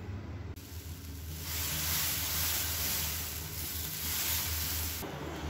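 Dosa batter sizzling on a hot tawa as it is spread with a ladle; the sizzle grows strong about a second and a half in and cuts off suddenly near the end, over a steady low hum.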